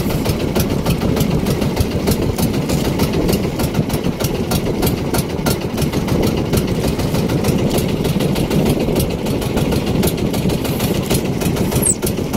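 The small engine of an outrigger fishing boat running steadily, with a fast, even pulse.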